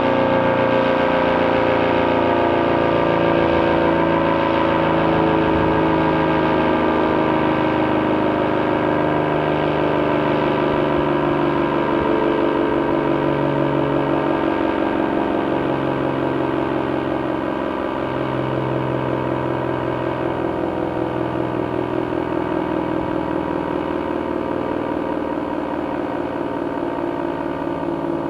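ACA Cyclone 125 electromechanical warning siren winding down. Its chord of several tones slowly falls in pitch and gradually fades.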